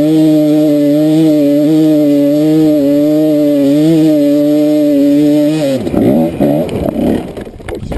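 Kawasaki KDX220's two-stroke single-cylinder engine running hard at steady high revs up a steep dirt hill climb. About six seconds in the engine note falls and wavers and gets quieter as the bike gets crossed up in loose, silty ruts near the top, followed by a few knocks near the end as it goes down.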